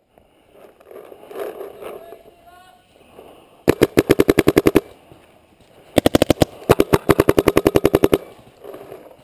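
Dye DM12 electronic paintball marker firing two rapid strings of shots, about ten shots a second: the first string about a second long starting near four seconds in, the second about two seconds long with a brief break, ending a second before the end.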